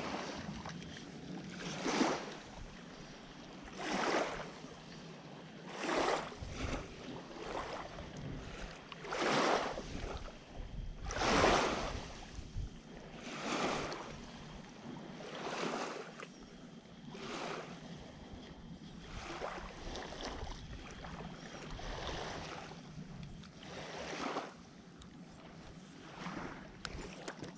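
Lake water sloshing in rhythmic swells about every two seconds, each rising and falling under a second long.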